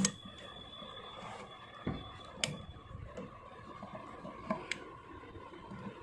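A few separate faint metal clicks and taps from handling a hand sewing machine's needle plate as it is being taken off: a sharp click at the start, then single taps about two seconds in and near five seconds.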